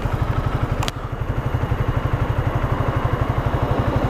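Honda CBR125 motorcycle's single-cylinder four-stroke engine running at low revs, a steady, even pulse of about a dozen beats a second, with a single short click about a second in.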